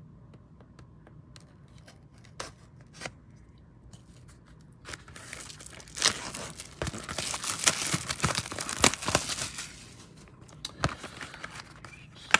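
Plastic wrapping on a box of trading cards being torn open and crinkled by hand: a few light taps and clicks at first, then about five seconds of dense tearing and crinkling starting around five seconds in.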